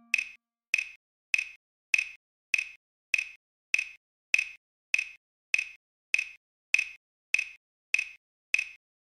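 Metronome click from Finale's score playback, ticking steadily about every 0.6 seconds (around 100 beats a minute), counting out a four-bar rest in the clarinet part with no notes playing.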